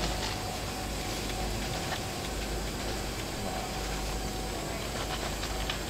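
Steady rushing outdoor noise with a low rumble and a faint steady hum, with no distinct events.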